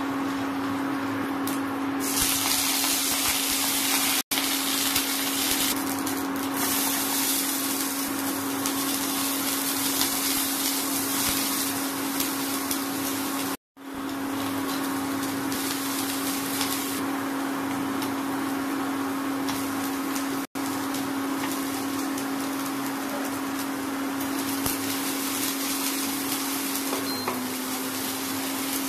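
Oil sizzling in a non-stick kadai as dal, peanuts, onions and vegetables fry and are stirred with a spatula, over a steady hum from the electric cooktop. The sound breaks off briefly three times.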